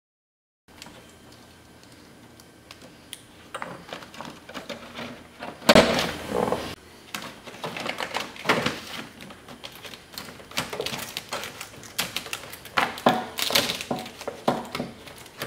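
Clear plastic vapor barrier inside a car door being handled and pressed flat, crinkling and rustling, with scattered clicks and clatter from wiring harness connectors; the loudest bursts come about six seconds in and again near the end.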